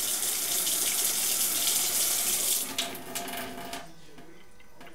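Water running from a chrome faucet in a strong steady stream, then turned off: a little under three seconds in the flow breaks up and trickles out, stopping just before the four-second mark.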